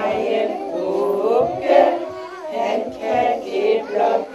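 A group of children singing a Christmas song together.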